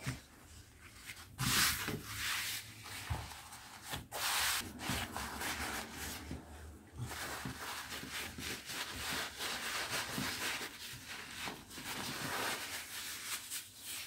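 Hands folding and rolling a terry-cloth kitchen towel on a wooden tabletop: cloth rubbing and brushing against itself and the wood in a string of irregular swishes.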